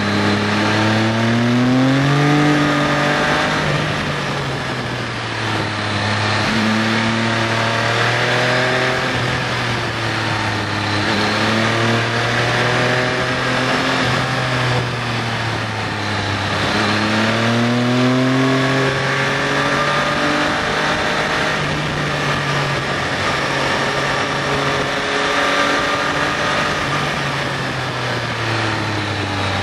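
Triumph Sprint ST 955i's three-cylinder engine heard from the rider's seat, pulling hard and easing off again and again through the bends, its pitch climbing and falling back several times, over steady wind rush.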